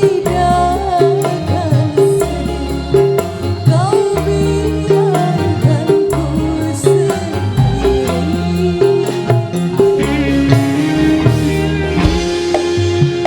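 Dangdut band music played loud through a large PA sound system: a steady pounding low beat with hand-drum percussion under a wavering melody line.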